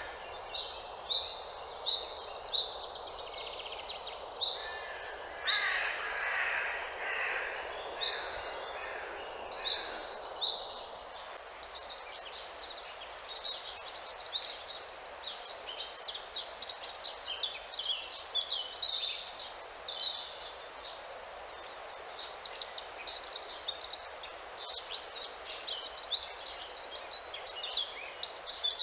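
Woodland birds chirping and singing, with a crow cawing a few times in the first half, over a steady background hiss. About halfway through the chirping turns busier: many quick, high twitters close together.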